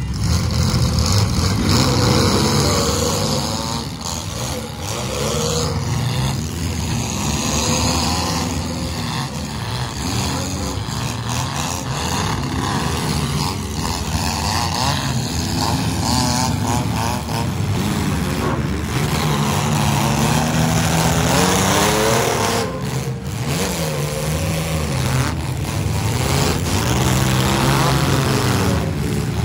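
Several small demolition-derby cars' engines revving hard together, their pitches rising and falling and overlapping, with scattered knocks and crunches as the cars ram each other.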